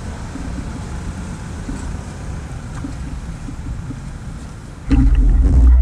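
Motorcycle engines idling at a standstill, a steady low rumble mixed with wind noise on the microphone. Near the end a much louder low rumble sets in, with a few clicks.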